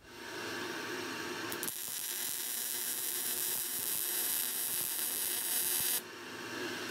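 Electric arc welding on a steel bracket: a steady crackling hiss from the arc. It starts at once, grows brighter about two seconds in, and drops suddenly about six seconds in.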